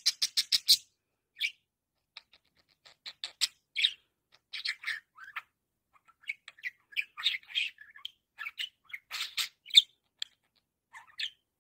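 A green budgerigar chattering: a quick run of sharp chirps and clicks at the start, then scattered chirps and warbled notes broken by short pauses.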